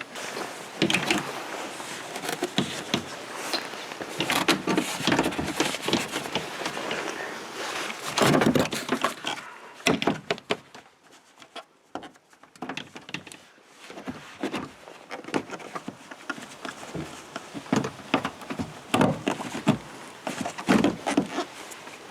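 Trunk-lid trim panels being handled and pressed back into place, with a run of irregular clicks, knocks and rustling. It eases off for a few seconds midway, then picks up again with a cluster of sharper knocks.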